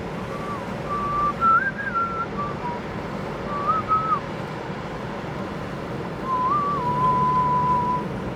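A person whistling a short tune: a few phrases of held notes stepping up and down, ending on one long held note, over a steady rushing background noise.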